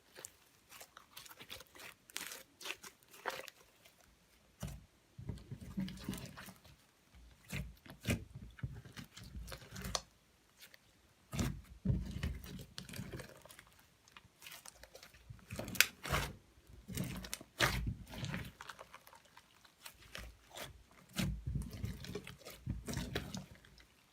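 Slime being squished, pressed and stretched by hand, with sharp crackling pops and wet squelches coming in repeated bouts of a second or two.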